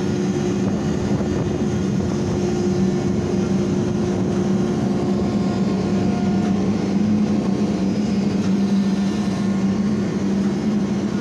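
Ship's hydraulic deck crane running under load, a steady machine hum with a strong low drone, heard from inside the crane cab as the operator works the levers.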